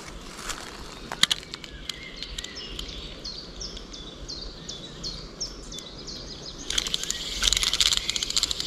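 A small bird singing a run of short, high, repeated chirps, two or three a second, over a light outdoor hiss. About two-thirds of the way in, a loud rapid crackling and clicking of rustled material starts and runs to the end.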